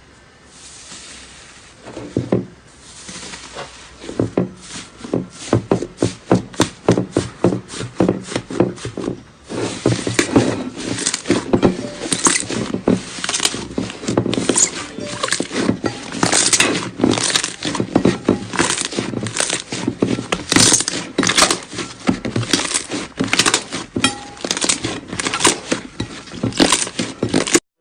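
Slime being squeezed and poked by hand: a long, irregular run of short clicks and pops, several a second, starting about two seconds in and getting louder after about nine seconds.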